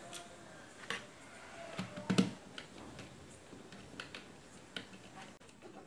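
Small clicks and taps of plastic parts being handled and fitted on a toy air gun's barrel, with a louder cluster of knocks about two seconds in and a few lighter ticks later, where a screwdriver tip presses against the part.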